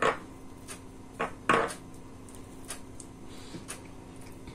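Hands handling food on a wooden cutting board and a plate, tucking tomato and cheese slices into cuts in raw pork: a few soft taps and clicks, the loudest pair about a second and a half in, over a faint steady hum.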